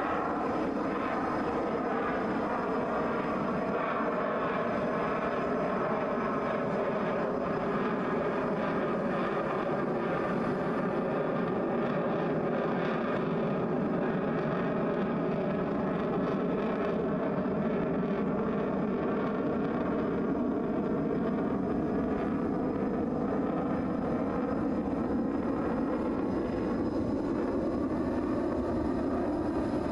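Fighter jet flying over, heard from the ground as a steady rush of jet engine noise whose tone slowly sweeps up and down as the aircraft moves.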